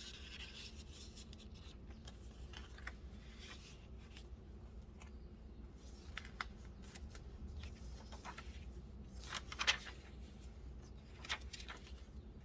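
Paper and card of a handmade junk journal being handled: scattered light rustles and taps, with a louder paper rustle about three-quarters of the way through.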